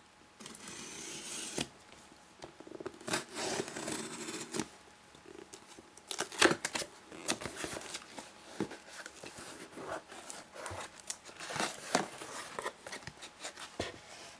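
A shipping box being opened by hand: packing tape cut and torn, with cardboard and packing material rustling and crinkling and many irregular sharp clicks and scrapes.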